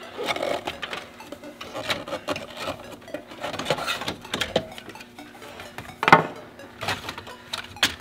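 Plastic center-dash trim and a tightly mounted CD player being tugged and worked loose by hand, making irregular clicks, rattles and knocks. A sharp knock about six seconds in is the loudest.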